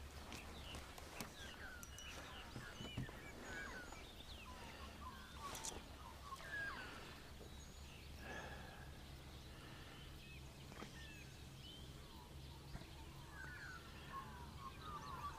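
Australian magpies warbling, with many short gliding, fluting notes scattered throughout, faint over a low steady outdoor rumble.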